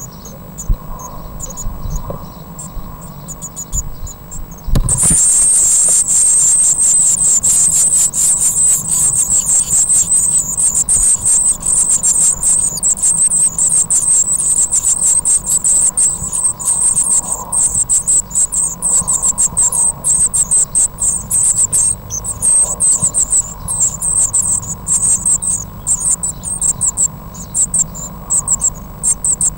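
Blue tit nestlings begging for food: a thin, rapid, very high-pitched chorus of cheeps that breaks out about five seconds in and keeps going as a parent feeds the gaping chicks.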